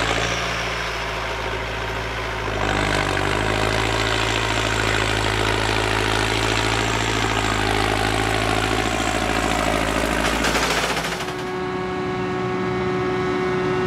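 Massey Ferguson tractor engine running steadily under load as it pulls a twin-rotor rake past, growing louder about three seconds in. Near the end it cuts to a different machine, a Claas Jaguar forage harvester, running with a steady high whine.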